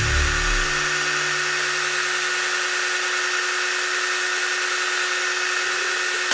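Small high-speed power tool motor running steadily with a constant whine and hiss; a lower motor hum fades out within the first second.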